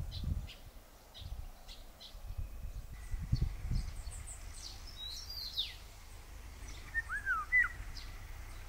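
Small birds chirping and calling, with short sweeping whistles in the second half, over an uneven low rumble of wind.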